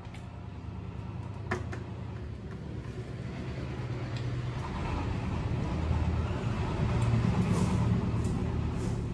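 Low engine rumble of a motor vehicle, swelling to its loudest about two-thirds of the way through and then easing off, as one passing by would. A single sharp click comes about a second and a half in.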